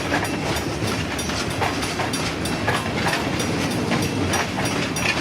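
Escanaba & Lake Superior Railroad freight train rolling past, steel wheels clicking irregularly over the rail joints over a steady rumble.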